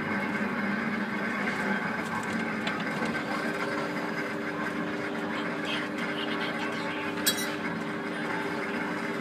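Suspended ride car's drive mechanism running steadily along its overhead rail, a mechanical whine of several held tones that shifts in pitch about three seconds in. A single sharp click about seven seconds in.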